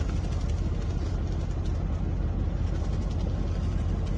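Vehicle driving, a steady low rumble with no change in level.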